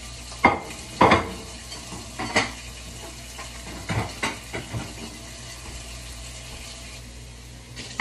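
Short knocks and clatters of kitchen items being moved about in a cabinet during a search for a can, over a steady faint hiss. The knocks come in a cluster in the first half and trail off after about five seconds.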